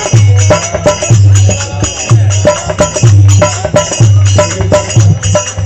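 Dholak playing a kirtan rhythm: deep, briefly ringing bass strokes about twice a second, with sharp slaps in between, over jingling hand cymbals.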